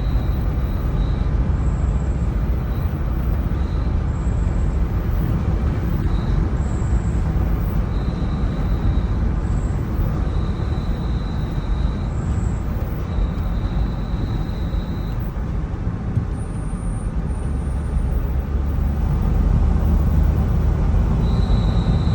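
Front brakes of a Mercedes-Benz Viano W639 van squealing: a thin high-pitched squeal that comes and goes in stretches of a second or two, over steady road and engine noise heard inside the cabin. The squeal depends on how far the steering is turned.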